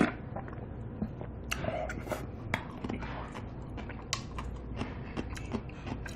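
Close-miked chewing of a mouthful of mul-naengmyeon, cold noodles in icy broth with cucumber and pear, heard as irregular wet mouth clicks and small crackles.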